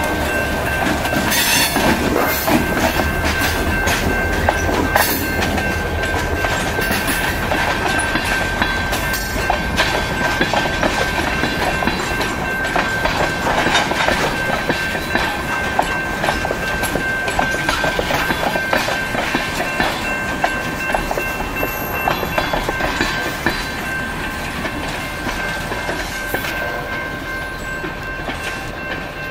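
Freight train of tank cars rolling past: steel wheels clattering over the rail joints, with the diesel rumble of the GP40-2 locomotive passing in the first few seconds and a steady high tone above. The sound slowly fades near the end as the train draws away.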